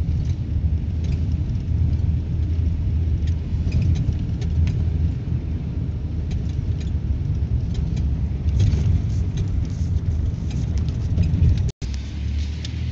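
Vehicle being driven, heard from inside the cab: steady low engine and road rumble with light scattered rattles, while the rebuilt GM 4L60E automatic transmission works through its gears. The sound cuts out for an instant near the end.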